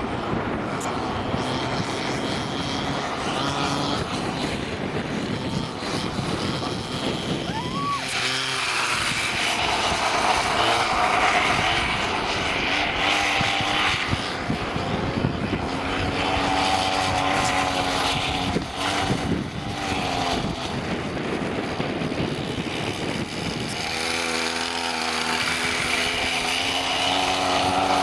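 Two-stroke chainsaw engine driving a motorised skateboard, running and revving unevenly, its pitch rising and falling as the throttle changes.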